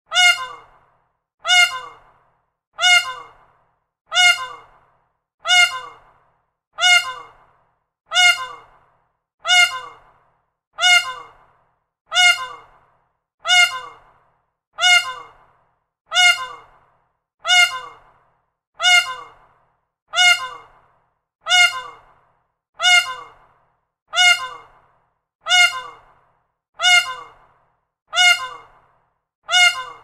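Peacock call: a short, loud cry that falls slightly in pitch and fades quickly. It repeats identically about every second and a third, some twenty times.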